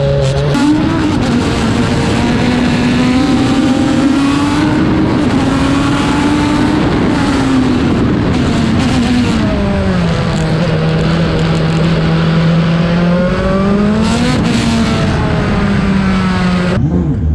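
Turbocharged Toyota 4A-GE four-cylinder engine of a Formula Atlantic race car running hard under load. Its pitch rises and falls with throttle and gear changes, holding lower and steady through the middle, then cuts off abruptly near the end.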